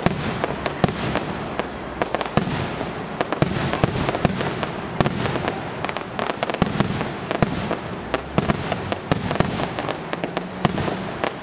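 Fireworks display: shells and firecrackers going off in a rapid, irregular run of sharp bangs and pops, several a second, over a steady crackling hiss.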